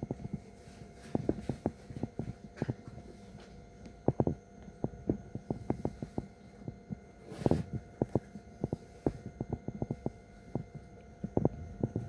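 Steady train-interior hum with a few fixed tones, under irregular low knocks and thuds scattered throughout, with a louder cluster about seven and a half seconds in.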